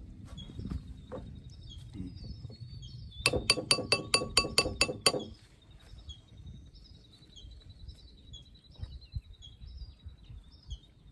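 Rapid run of about ten sharp metallic clinks, roughly five a second for about two seconds, each ringing briefly: metal cookware being tapped or knocked. A faint steady high trill and bird chirps in the background.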